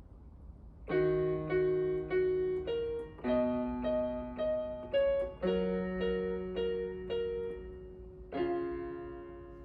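Background piano music: a gentle melody of repeated notes over held bass notes, in short phrases, ending on a chord that fades out near the end.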